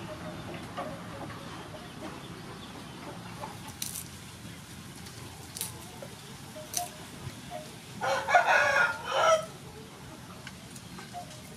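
A rooster crows once, about eight seconds in: one call of about a second and a half, the loudest sound here. Before it come a few light clicks from garlic cloves being peeled over a wooden board.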